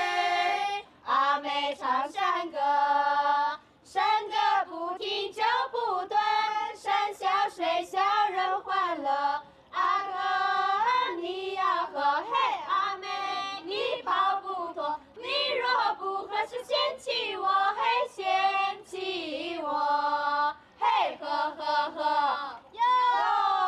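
Women singing a Miao toasting song: high, held notes in phrases of a few seconds, with short breaks between them.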